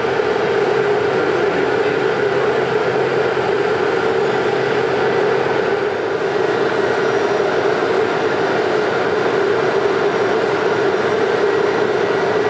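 Steady machinery drone with a strong hum; a fainter, lower hum drops out about halfway through.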